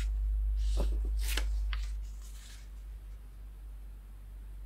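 Paper being handled, with a few short rustles and crinkles in the first couple of seconds, over a steady low hum.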